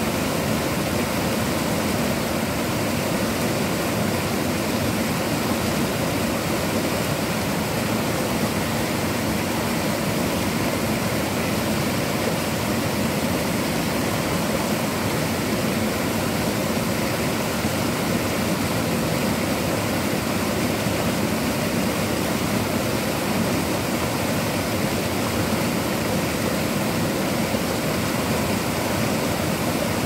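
Waterfall: a steady, unchanging rush of falling water.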